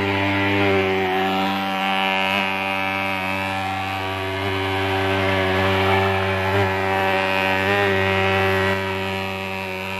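Swingfog pulse-jet thermal fogger running steadily while spraying insecticide fog: a loud, even, low-pitched buzz that holds one pitch throughout.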